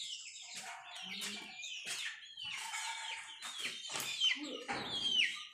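Chickens clucking and calling, a busy run of short, high calls that fall in pitch.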